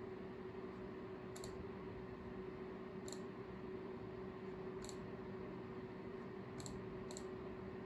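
Computer mouse clicking five times, one click every second or two with the last two close together near the end, over a steady low hum.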